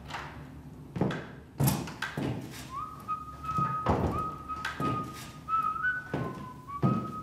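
Someone whistling a simple tune over regular footsteps on a hard floor, about two steps a second, coming closer.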